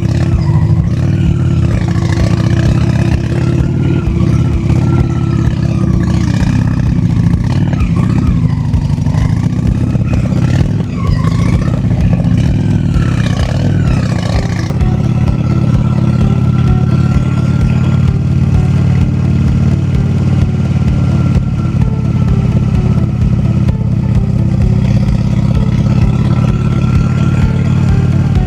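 Honda Shadow V-twin motorcycle engine running at a steady note. Its pitch steps to a new steady level about six seconds in, and again around the middle.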